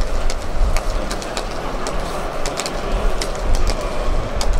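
Wind rumbling on the microphone, over a broad outdoor hubbub, with scattered sharp claps of hands coming irregularly throughout.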